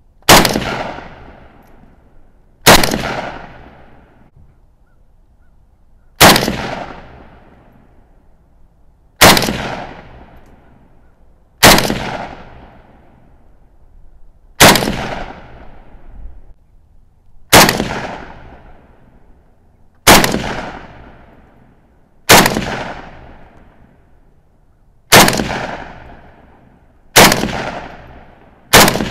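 Norinco NHM-91, a semi-automatic RPK-pattern rifle in 7.62×39 mm, firing about a dozen single aimed shots, one every two to three seconds. Each loud crack trails off in a short echo.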